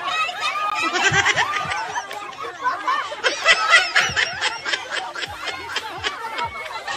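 Several people laughing and chattering at once, with a burst of quick laughter about halfway through.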